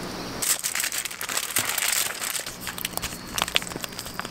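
Plastic pouch of wet pet food crinkling as it is handled and squeezed out by hand, a dense run of crackles starting about half a second in.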